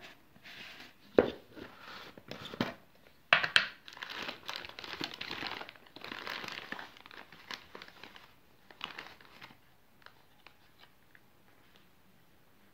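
Tub of bleach powder being opened: a sharp click about a second in as the lid comes off, then the crumpled inner wrap crinkling and tearing for several seconds as it is pulled open.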